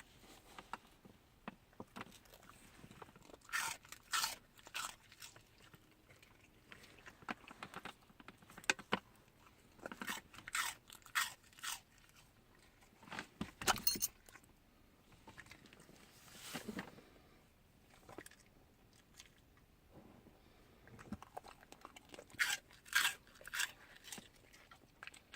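A wolf crunching and chewing cheese balls, in several bursts of crunches with short pauses between them.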